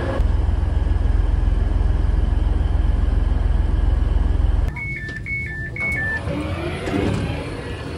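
A steady low rumble from a Class 185 diesel unit standing at the platform cuts off about four and a half seconds in. Then a train's door warning sounds: three two-note high-low beeps over about a second and a half, from a Northern Class 331 electric unit.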